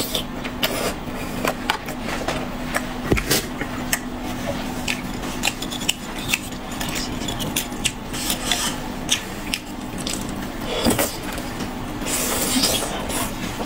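Eating cold-pot skewers from a dish: scattered small clicks and clatter of utensils and skewer sticks against the dish, some louder knocks near the middle and near the end, over a steady faint hum.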